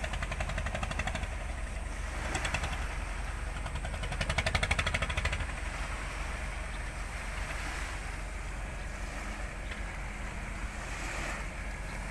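Steady low rumble of a large ro-ro car ferry's engines as it manoeuvres alongside a pier, mixed with wind and water. It swells briefly with a fast pulsing about four seconds in.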